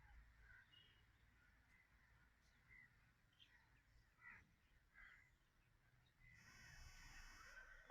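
Faint calls of aviary birds: scattered short chirps, then a longer, harsher call with many stacked tones that starts about six seconds in and stops just before the end.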